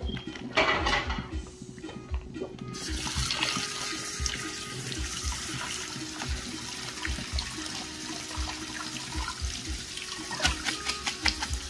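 Kitchen tap running onto shredded bamboo shoots in a plastic colander, with water splashing as a hand stirs and rinses them. The steady rush of water comes on about three seconds in.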